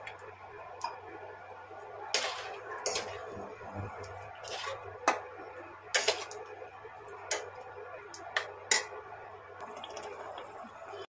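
Steel spatula knocking and scraping against a stainless-steel kadai as jackfruit curry in watery gravy is stirred, about ten sharp knocks over a steady bubbling simmer. The sound cuts off abruptly just before the end.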